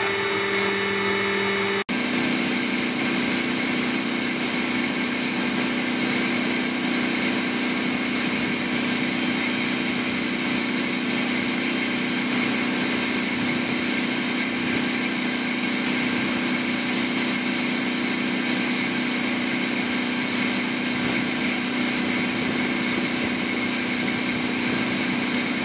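Steady drone and whine of an MV-22 Osprey's turbine engines running, with several held tones. About two seconds in, the sound cuts abruptly from one steady drone to another with a different pitch.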